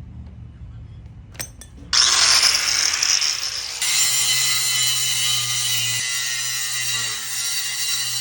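Power grinder grinding down welds on metal: a few clicks, then about two seconds in a sudden loud harsh grinding that settles about two seconds later into a steadier whining grind.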